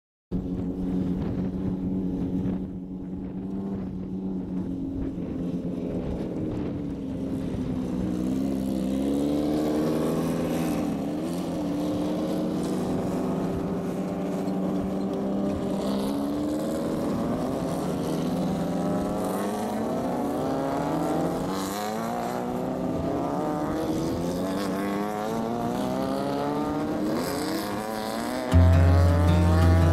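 Air-cooled Volkswagen 1600 cc engine of a Class 1600 desert race car, its pitch rising and falling over and over as it is revved. A loud low beat cuts in near the end.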